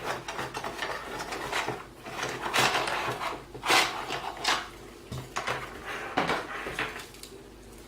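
Irregular handling noises, short rustles and light plastic knocks, as a computer case fan is unpacked and handled.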